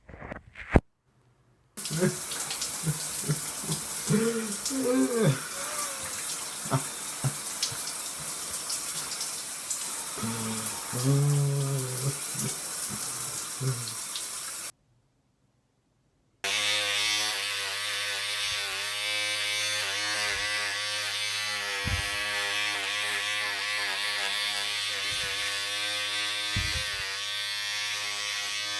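Water running from a tap into a sink. After a short silence, a handheld electric shaver starts and buzzes steadily.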